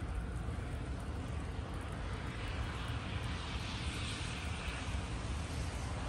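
Steady low rumble of a car's engine and road noise while driving, with a hiss that swells and fades around the middle.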